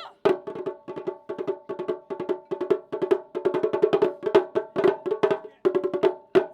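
Taiko drums struck in a fast, even rhythm, about five strokes a second, each stroke bright and ringing.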